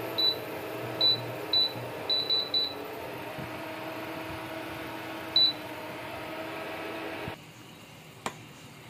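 Imarflex IDX-1650S induction cooker's touch panel beeping as its buttons are pressed: seven short high beeps, six in quick succession at the start and one more about five seconds in. A steady hum from the running cooker runs beneath them and stops abruptly about seven seconds in.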